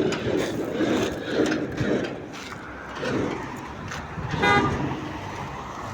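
Road vehicles passing, with a single short car horn toot about four and a half seconds in.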